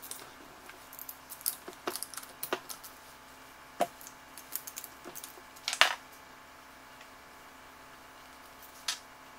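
Ratchet wrench clicking and small metal parts clinking as bolts are undone on a turbocharger's wastegate end housing, in quick runs of clicks over the first three seconds. A louder metallic clatter comes about six seconds in, when the ratchet is set down on the workbench, and a single click near the end.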